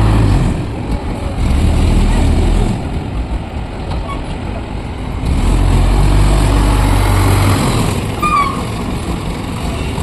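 Heavy diesel engine of construction or haulage machinery running at a steady pace. Its low hum swells and eases a few times, growing louder about five seconds in.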